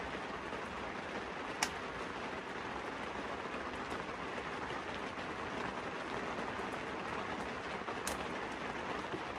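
Wood fire burning in a wood stove: a steady crackle and hiss, with two sharp pops from the burning logs, one about a second and a half in and one near the end.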